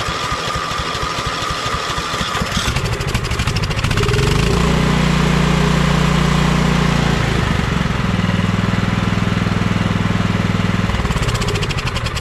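Kohler Command engine of a riding mower running just after starting on a newly fitted replacement carburetor. It runs steadily, with its speed stepping up about four seconds in and changing again a few seconds later before settling lower near the end.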